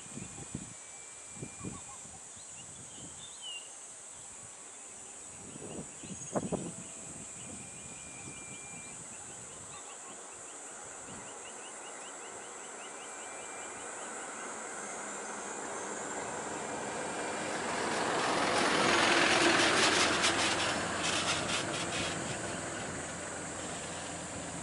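A bus engine drawing close, its noise swelling to a peak about three-quarters of the way through and then easing off, over a steady high insect drone. A few short thumps sound in the first several seconds.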